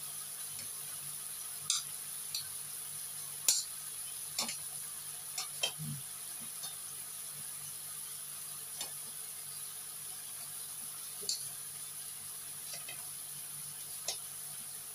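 Minced pork in chili paste sizzling in a frying pan: a steady hiss with a dozen or so short, sharp pops scattered through it, one every second or two.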